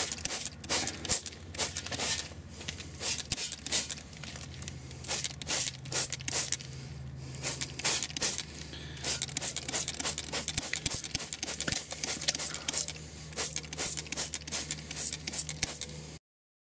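A hand trigger spray bottle of motorcycle cleaner pumped over and over, each squeeze a short hissing spray, sometimes several a second, with brief pauses, over a steady low hum. It cuts off abruptly near the end.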